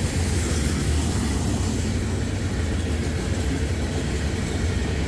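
Freight cars of a loaded rock train rolling past, a steady, deep wheel-on-rail noise that does not let up.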